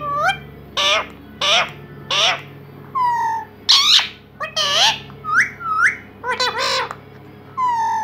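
Indian ringneck parakeet calling repeatedly: about a dozen short squawks and whistled chirps, some gliding up and some dropping in pitch.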